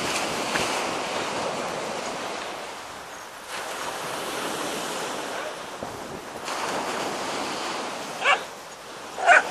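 Wind noise on the microphone, rising and falling in gusts, with surf rushing behind it. A dog gives one short yelp near the end.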